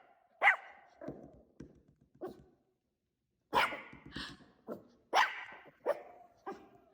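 Several Maltipoo puppies barking: short, sharp yaps in irregular bursts, with a brief pause near the middle.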